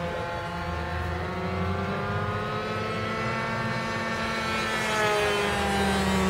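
Kyosho Calmato Sport RC model airplane flying overhead, its engine and propeller giving a steady drone. The pitch drifts up slightly, then slides down about two-thirds of the way through as the plane passes and banks away, growing a little louder near the end.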